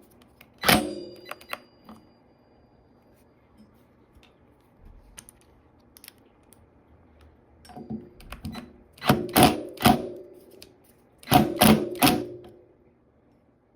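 Metal tools clattering and clanking as they are handled: one sharp clank with a short ring about a second in, then a run of several loud clanks and clinks near the end.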